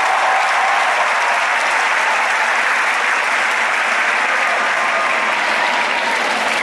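Ballpark crowd applauding and cheering in a steady wash of clapping and voices, right after a ground-ball out.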